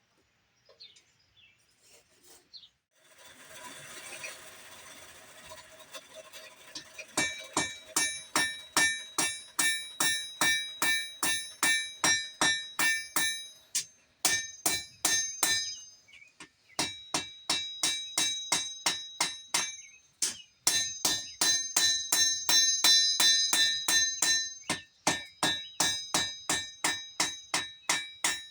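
Hand hammer forging a blade from old buggy-spring steel on an anvil: a long run of sharp, ringing blows, about two to three a second, with short pauses. The blows begin after a few seconds of steady rushing noise.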